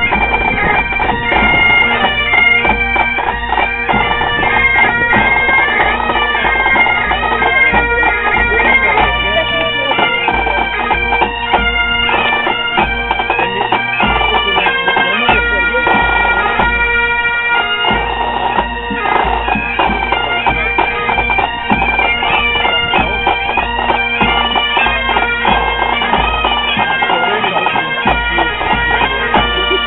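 Bagpipe music: a pipe tune of changing melody notes over the steady drones.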